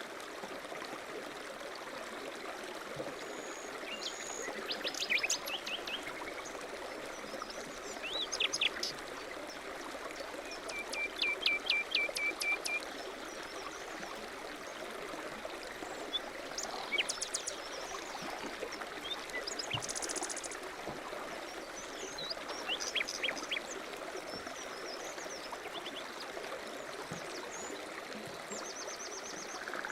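Running stream with small birds chirping and trilling over it: scattered short calls, and a run of quick repeated notes about eleven seconds in.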